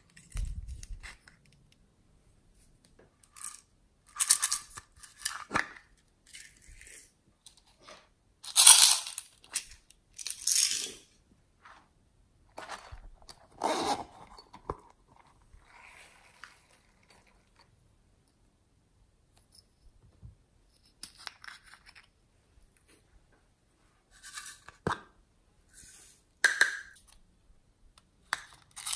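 Hands handling and opening small plastic and silicone toy containers: short bursts of plastic clicking, scraping and a zipper being pulled, with quiet gaps between. The loudest burst comes about nine seconds in.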